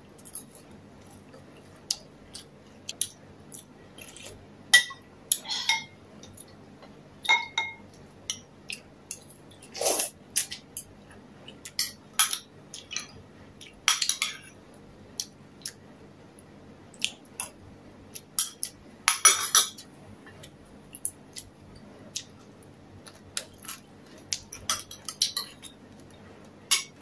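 Eating sounds: a metal spoon clinking now and then against a ceramic soup bowl, a couple of the clinks ringing briefly, between bouts of chewing and sipping.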